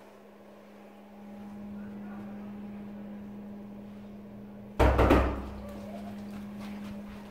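A door banging once, sudden and loud, about five seconds in, over a steady low hum.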